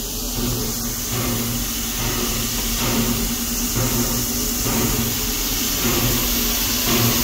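Steam locomotive No. 2 'Lilly Belle' working at the station: a steady hiss and hum with a soft rhythmic puff about once a second.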